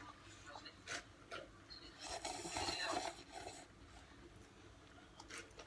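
Faint scraping and rubbing of a fork working noodles inside a paper instant-noodle cup, with a few small taps and a louder rasping stretch about two to three and a half seconds in.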